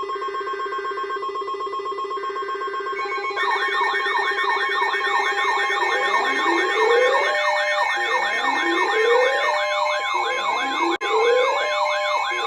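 Several electronic siren and alarm tones layered together. A steady pulsing alarm tone comes first; a fast warbling wail joins about three seconds in; from about six seconds a rising whoop that levels off repeats every couple of seconds.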